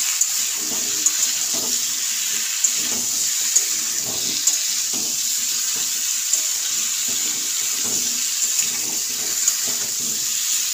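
Pumpkin and potato pieces frying in hot mustard oil in a metal kadai, a steady sizzle, while a metal spatula stirs them with repeated scraping strokes and an occasional sharp click against the pan.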